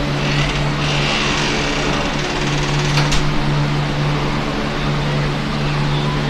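Steady mechanical hum throughout, with a single sharp click about three seconds in.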